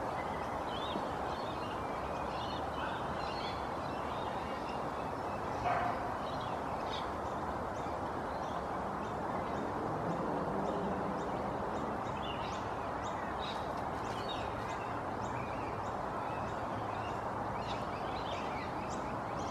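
Small birds chirping and twittering over steady background noise, with one brief louder note about six seconds in.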